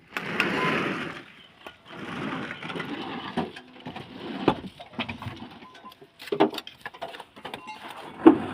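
Trowel scraping and spreading mortar in rasping strokes a second or two long, with sharp taps of trowel on brick and a louder knock near the end.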